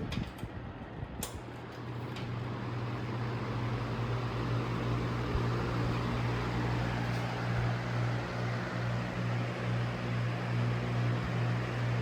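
Lasko Air Flex box fan: a few clicks near the start, then the rush of air builds over a few seconds as the motor and blades speed up, and runs steady over a constant low motor hum.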